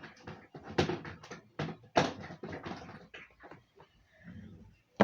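Fidget toys being handled and set down: a string of irregular clicks, knocks and rustles, loudest about one and two seconds in.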